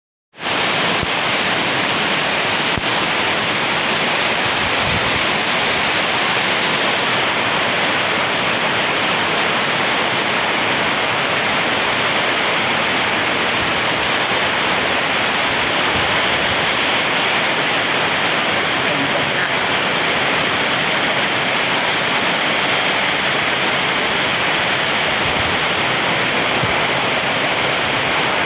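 Heavy rain falling in a steady, dense hiss that keeps the same level throughout.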